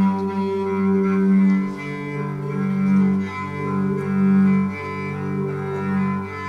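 Background music of slow, sustained low notes that swell and fade and change pitch every second or two.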